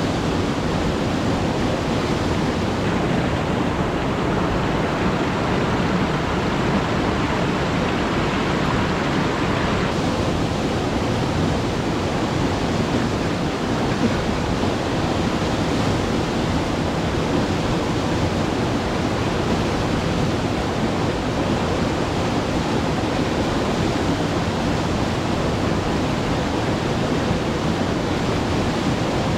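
Alpine river flowing, a steady rush of water.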